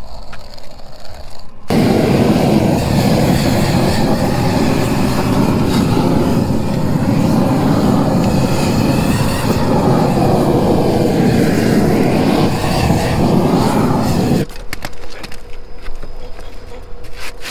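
Propane roofing torch running with a steady rushing noise, its flame heating and melting the bitumen of torch-down membrane along the base of an AC unit. It starts suddenly about two seconds in and stops near the end, followed by a few light taps and scrapes.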